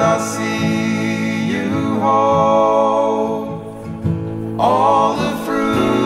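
Music: a song with a singer holding long notes in three phrases over acoustic guitar.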